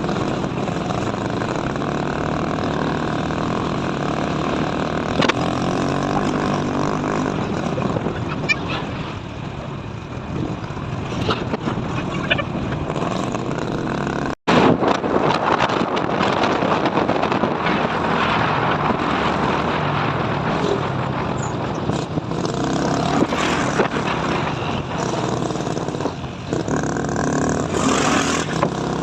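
A vehicle on the road, its engine and tyre noise running steadily. The sound drops out for an instant about halfway through, then carries on.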